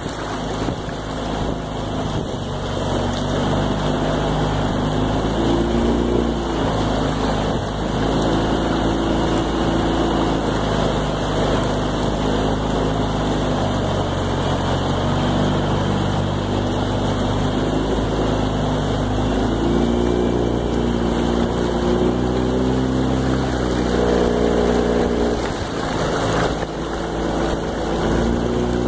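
Outboard motor of a coaching launch running at low speed, its pitch rising and falling slightly.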